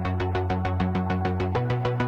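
Background music: electronic track with a fast, even run of synthesizer notes over a held bass line.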